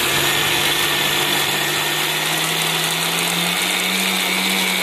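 Electric mixer grinder (mixie) running steadily with a loud motor hum, grinding soaked rice, lentils and mudakkathan leaves into a coarse adai batter in its steel jar.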